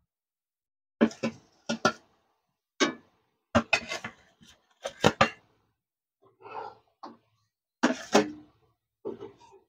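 A metal spatula clinking and scraping against a steel plate and a metal kadai as fried fish pieces are slid one at a time into boiling gravy: a string of short, sharp clinks and taps, irregularly spaced.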